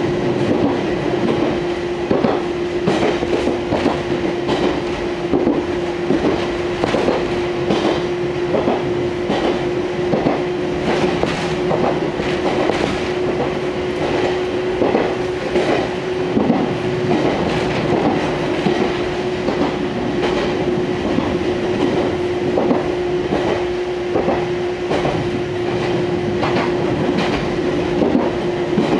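Fukui Railway Fukubu Line train running at speed, heard from inside the car: a steady even-pitched hum with wheels clacking over rail joints many times.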